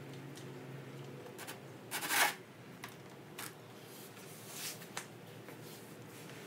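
Handling noises: scattered light clicks and knocks, with a short rustling scrape about two seconds in, over a faint steady low hum.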